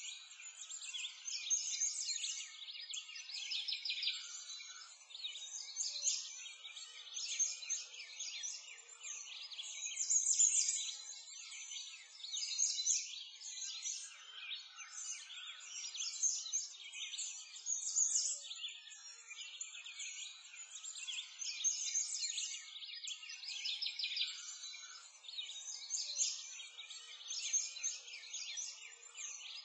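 Many birds chirping and twittering continuously as a dense, high-pitched chorus, like a birdsong ambience recording.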